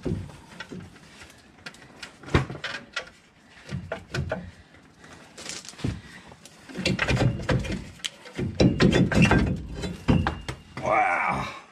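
A rusty rear brake rotor being worked loose and pulled off its hub: repeated metal knocks, clatter and scraping. A brief wavering metallic screech comes near the end as it slides off.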